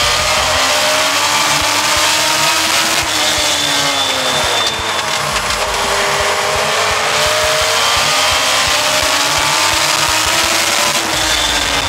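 In-car sound of a U.S. Legend car racing, its Yamaha motorcycle engine at high revs over loud wind and road noise. The engine pitch falls about three seconds in as the car lifts into a turn, climbs again along the straight, then falls again near the end.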